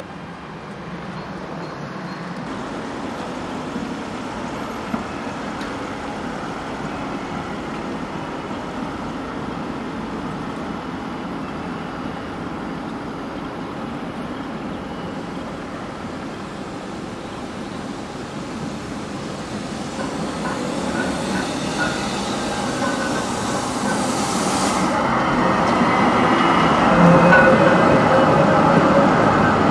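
Low-floor electric tram approaching and passing close by, its running noise building from about twenty seconds in and loudest near the end, with a few steady tones in the running sound.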